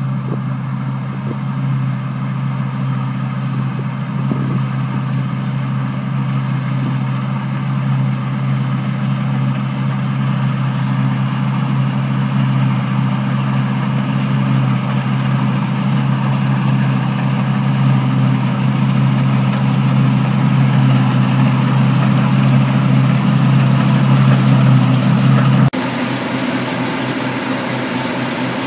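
New Holland TC5080 Hillside combine harvester running steadily as it harvests grain, its engine drone slowly growing louder as it comes closer. Near the end the sound changes abruptly to a nearer, steadier engine running.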